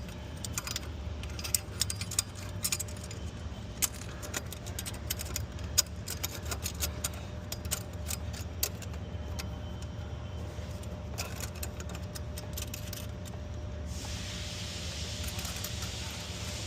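Small metal parts and hand tools clinking and rattling in quick irregular clicks as bolts, a gasket and the EGR hardware are handled, over a steady low hum. About three-quarters of the way through, the clicks give way to a steady hiss.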